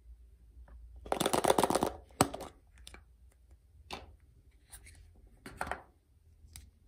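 A hard plastic surprise-egg capsule being handled and pulled open. About a second in there is a dense clatter of plastic lasting under a second, then a sharp snap, followed by a few separate clicks as the small plastic figure inside is handled.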